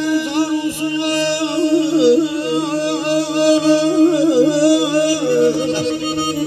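Button accordion playing an ornamented, wavering Azerbaijani mugham melody over a steady held drone note.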